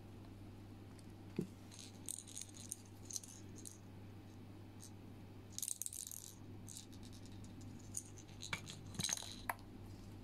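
Small plastic keychain charms and their chains clicking and jingling as they are picked up and handled, in a few short clusters of light clinks.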